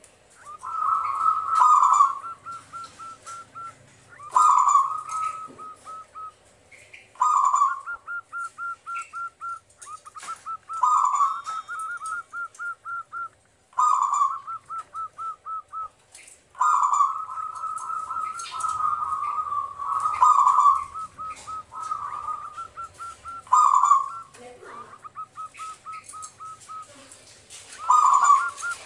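Zebra dove singing, repeating its phrase every few seconds: each phrase is a loud opening note followed by a quick run of short cooing notes.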